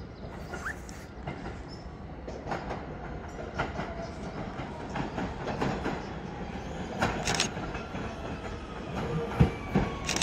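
R160 Siemens subway train approaching, its rumble building with sharp wheel clicks over the rail joints that come stronger toward the end. In the last couple of seconds a faint falling whine sets in as the train slows for the station.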